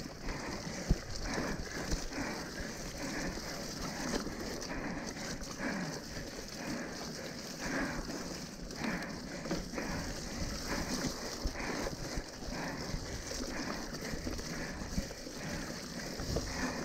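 Mountain bike ridden over a wet, muddy trail: tyres hissing and squelching through the sloppy ground while the bike rattles and knocks irregularly over bumps.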